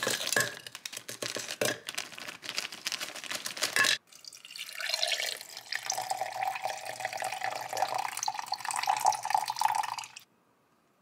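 Frozen berries clattering and rattling into a blender cup for about four seconds. Then water is poured in over them, the pouring sound rising slightly in pitch as the cup fills, and it cuts off sharply near the end.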